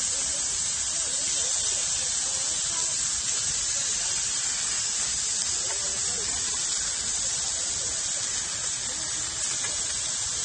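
Meat slices sizzling on a small hot grill plate over a camp stove: a steady hiss.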